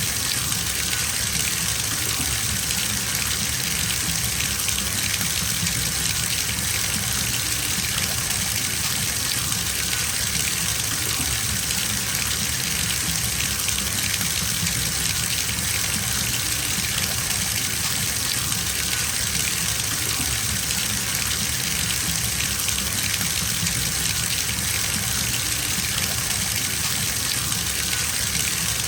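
Bathtub filling from a running tap: a steady stream of water splashing into the tub, an even rushing noise that does not change.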